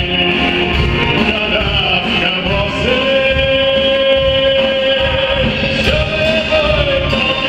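Wind band of saxophones, flutes, brass and drums playing a folk song, with a man singing into a microphone. A long note is held steady for about two seconds a few seconds in.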